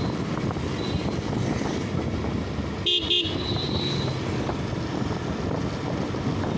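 Steady road and wind noise from a motorcycle riding through traffic. About three seconds in, a vehicle horn beeps twice in quick succession.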